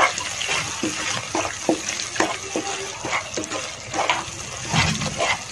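Wooden spatula stirring thick onion-tomato masala in a pan, giving irregular wet squelches and scrapes.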